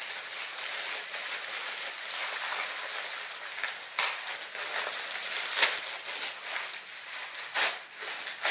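Tissue paper and gift wrapping rustling and crinkling as presents are unwrapped by hand, with a few sharper, louder crackles along the way.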